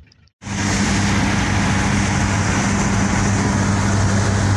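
Steady engine hum and road noise heard from inside a moving vehicle's cab at highway speed. It starts abruptly about half a second in.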